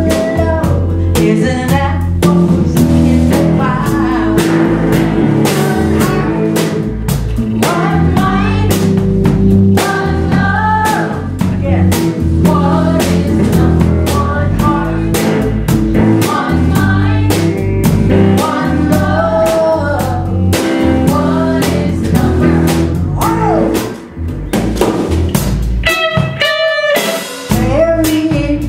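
Live band playing a song: drum kit, electric bass and guitar, with women singing. The drums and bass drop out for about a second near the end, leaving a held note.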